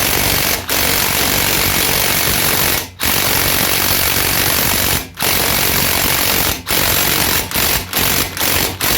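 Impact wrench hammering, running a lug nut down to draw a new wheel stud through the hub. It pauses briefly a few times, then goes in short bursts near the end as the stud seats flush.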